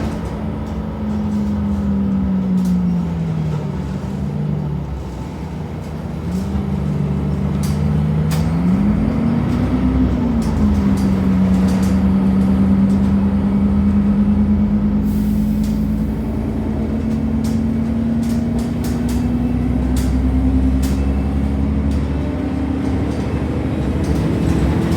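Temsa Avenue LF bus with a DAF Euro 5 engine and ZF automatic gearbox under way, the engine running beneath a strong whine. The whine falls in pitch a couple of seconds in, rises again around eight seconds, then holds and slowly climbs, with light rattles throughout.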